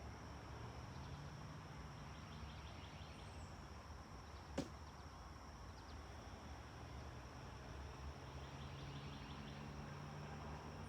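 Quiet room tone: a faint steady low hum and a thin high-pitched whine, broken once by a single sharp click about four and a half seconds in.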